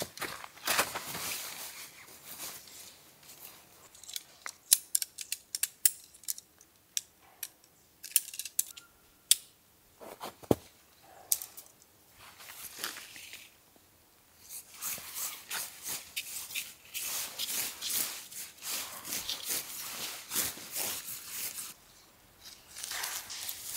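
Close handling noise: a run of small sharp clicks and snips, then a long stretch of steady rustling near the end.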